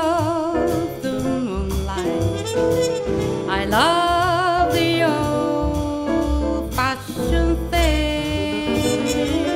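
Small jazz combo playing an instrumental passage of a swing ballad: trumpet holding long notes with vibrato over piano, upright bass and drums.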